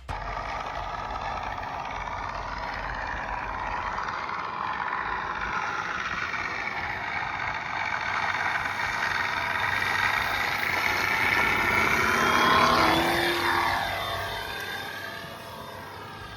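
Radio-controlled P-51D Mustang model flying past, its onboard sound system playing a piston-engine sound effect. The sound grows louder to a peak about twelve seconds in, with a brief high whistle near the peak, then fades as the pitch drops.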